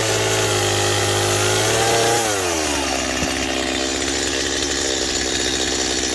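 Chainsaw running at high revs, then the throttle is let off about two seconds in and the engine drops to a steady idle.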